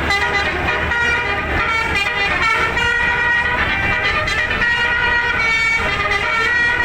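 A 36-note telolet basuri musical air horn playing a tune non-stop, one held note sliding into the next with no break.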